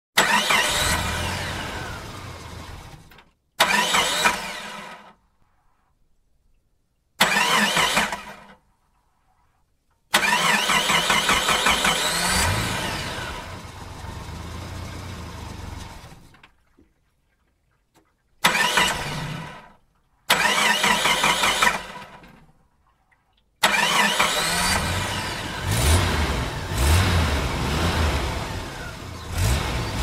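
A car engine starting again and again, seven times in all. Each time it catches with a sudden loud burst and dies away within a few seconds, one run lasting about six seconds. The last start keeps running with a string of revs.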